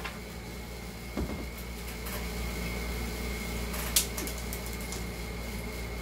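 A sheet of paper is handled and fastened onto a board by its top corners: a soft knock about a second in and a sharp click about four seconds in, over a steady background hum.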